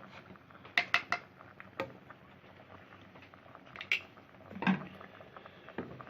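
A spoon knocking and scraping against a cooking pot while stirring and skimming boiling marmalade, with a handful of sharp, irregular knocks.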